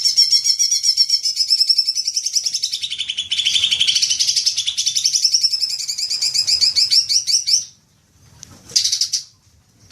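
Greater green leafbird (cucak ijo) singing a long, rapid, unbroken chattering trill, the 'ngekek panjang', for about eight seconds before it stops sharply, followed by a brief burst of notes about a second later.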